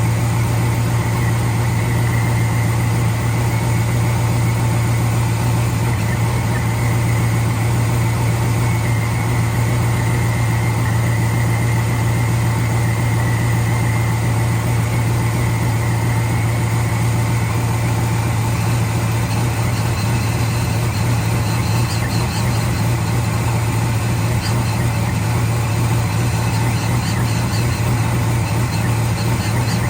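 LS-swapped V8 in a 1978 Chevrolet Caprice idling steadily, running again after a no-start fault.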